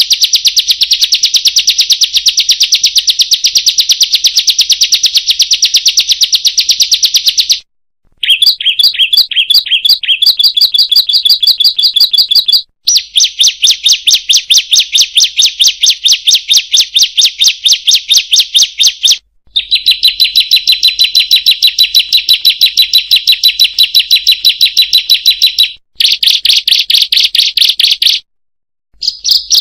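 Ciblek songbird singing a fast, unbroken chattering trill of rapid high notes, loud, in long phrases of several seconds separated by brief pauses.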